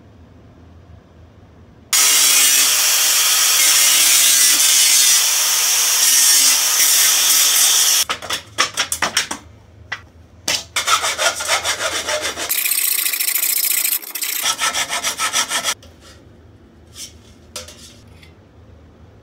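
Loud scraping and rasping from metalwork on a thin steel can. A steady rasp starts about two seconds in and lasts about six seconds. It gives way to quick repeated strokes, and a few light clicks come near the end.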